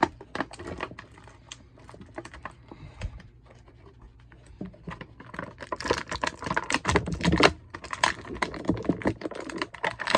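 Plastic action-figure packaging being handled: a rapid run of sharp clicks and crackles as the figure is worked out of its box tray, busiest in the second half.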